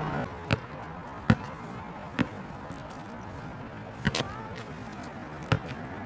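Basketball bouncing on an asphalt court as it is dribbled: about six sharp bounces at uneven intervals, the one about a second in the loudest, with two in quick succession just after four seconds in.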